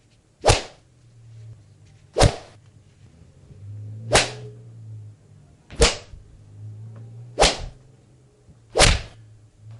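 Punch and slap sound effects: six sharp, cracking hits, one about every one and a half seconds, with a faint low drone between them.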